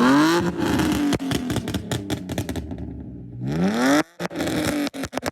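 BMW E46 328i's 2.8-litre straight-six, stage 2 tuned, revved twice with quick throttle blips. After each blip, as the revs fall, comes a string of sharp pops and crackles from the exhaust. The second rev is cut off abruptly about four seconds in.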